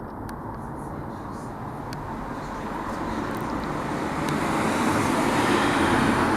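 A road vehicle approaching, its tyre and engine noise growing steadily louder through the second half.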